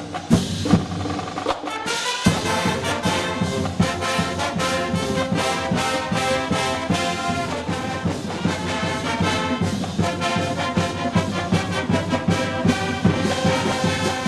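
Closing theme music with brass and a steady drum beat.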